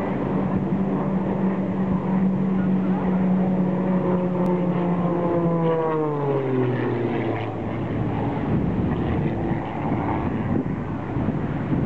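Red Bull Air Race propeller plane making a fast low pass: a steady engine-and-propeller drone whose pitch drops steeply about five to seven seconds in as the plane goes by. It then gives way to wind on the microphone and surf.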